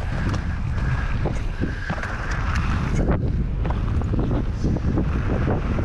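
Wind rushing over the mountain biker's camera microphone, with the rumble of the tyres on the dirt trail and quick rattling clicks from the bike.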